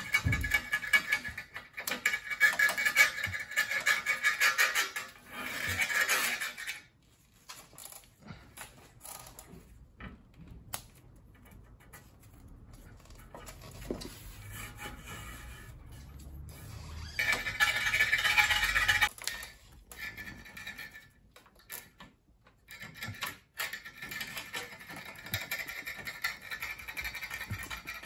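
Foam backer rod being pressed by hand and tool into the glazing gap between a glass pane and a steel door frame, rubbing and scraping against the glass and metal in bursts. The longest burst comes in the first six seconds and another about two-thirds through.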